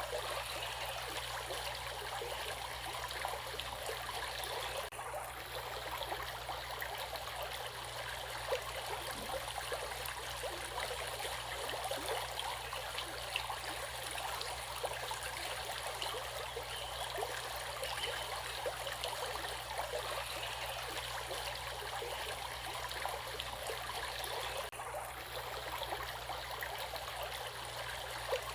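A stream of water flowing steadily, a continuous splashing rush with no pauses.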